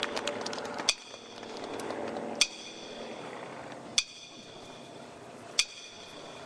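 A bell-like chime struck four times, evenly about one and a half seconds apart, each strike ringing briefly, over a faint low hum.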